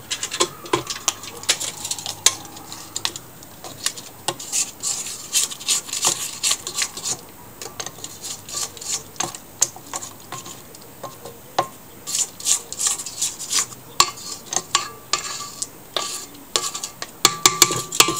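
Spatula scraping the sides of a stainless steel stand-mixer bowl and the flat beater, a run of irregular scrapes and light clinks, with the mixer switched off. This is scraping down the creamed butter and egg mixture between mixing steps.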